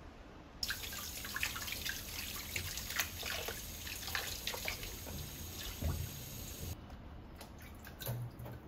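Kitchen tap running into a plastic basin of vegetables in a stainless-steel sink, with splashing as hands rinse them. The water cuts off suddenly about three-quarters of the way through, followed by a few light knocks as the washed vegetables are handled.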